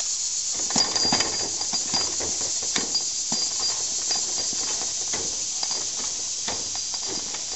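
Light knocks and clicks of a metal rod being worked through a PVC pipe by hand, over a steady high hiss with a faint, repeated high chirp.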